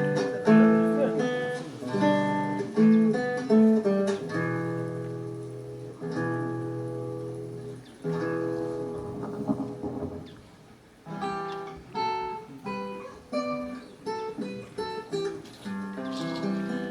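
Acoustic guitar playing a melody of plucked notes and chords, dipping quiet briefly about ten seconds in.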